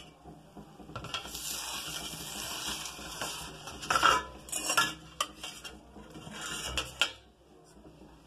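Metal spoon scraping and clinking against a stainless-steel plate while scooping up an omelette and moving it into a steel bowl: long scrapes with a few sharp clinks near the middle.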